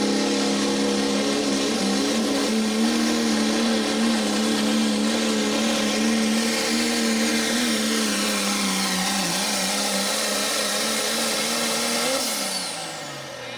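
Cummins turbo-diesel in a Pro Stock Diesel four-wheel-drive pulling truck, running flat out under load as it drags the sled: a loud, steady high-revving drone with a high turbo whine. About twelve seconds in the revs fall away sharply and the sound drops as the driver lets off at the end of the pull.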